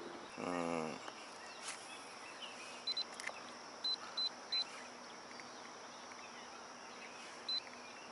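Quiet outdoor lakeside background with faint chirping. About half a second in there is a short call falling in pitch, then several brief high beeps, a few of them in quick succession.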